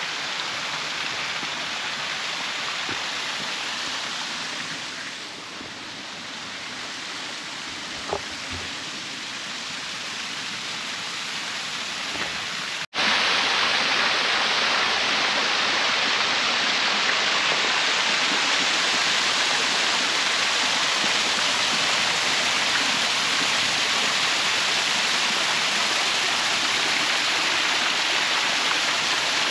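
Small waterfall splashing over a rock ledge into a pool, a steady rush of water. It cuts out for an instant about 13 seconds in and comes back louder and brighter.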